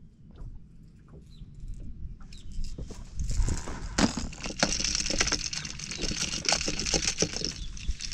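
A hooked bass thrashing and splashing at the water's surface, with many sharp slaps, starting about two seconds in and stopping shortly before the end.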